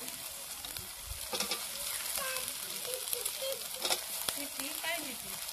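Spiced fish-curry gravy sizzling steadily in a black iron kadai. A few sharp knocks sound as potato pieces are dropped into the pan and the steel spatula touches its side.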